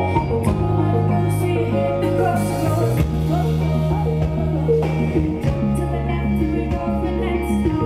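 Live band playing a song: drum kit with cymbals, electric guitar and bass guitar, the bass holding long notes that change about three seconds in and again a couple of seconds later.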